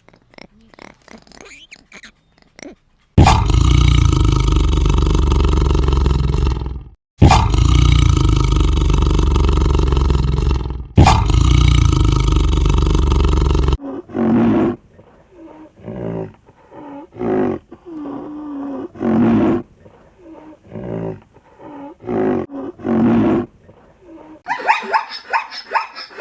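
Three long, loud calls from a large wild animal, each lasting a few seconds, followed by about a dozen shorter, quieter calls in quick succession.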